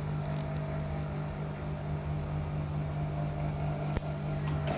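Industrial sewing machine's motor humming steadily while the machine stands ready, with no stitching.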